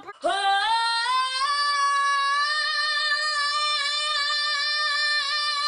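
A woman belting one long sung note, sliding up over the first second and then held steady.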